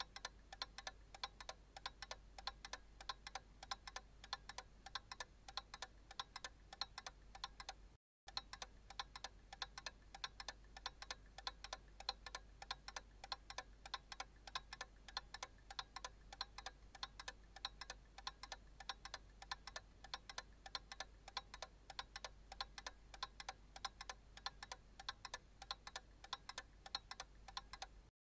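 Analog clock ticking steadily, several quick ticks a second, over a faint low hum. The sound drops out completely for a split second twice, about eight seconds in and near the end.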